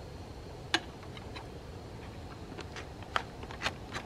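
Scattered sharp clicks and clinks from handling a titanium cook pot with its wire handle and a freeze-dried meal pouch, the loudest just under a second in and a few more close together near the end, over a steady low background noise.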